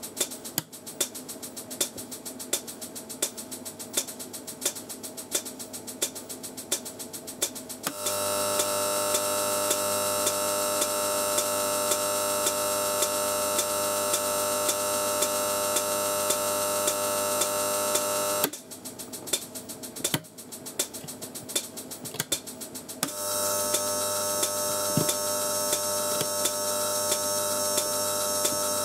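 High-voltage electrical discharge at a wire electrode dipped in electrolyte. It starts as a rapid crackle of separate sparks, and about eight seconds in it settles into a steady, louder buzz as a continuous glow holds at the electrode tip. Around eighteen seconds it falls back to crackling for a few seconds, then the steady buzz returns.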